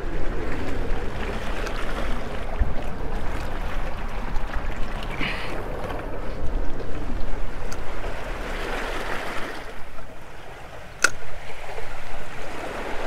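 Sea water sloshing and lapping around a small boat's hull and the legs of a rusty offshore platform, swelling and easing with the swell. A single sharp click about eleven seconds in.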